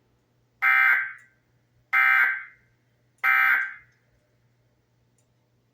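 Emergency Alert System End of Message signal: three short, identical bursts of digital SAME data tones, about 1.3 seconds apart. The code marks the end of the alert broadcast.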